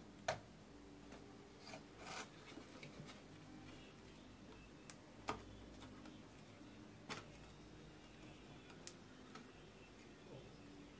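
Faint handling sounds from hands, solder and a soldering iron on an amplifier circuit board while a filter capacitor is being fitted: a handful of short sharp clicks and taps over a low steady background, the loudest click about a quarter second in.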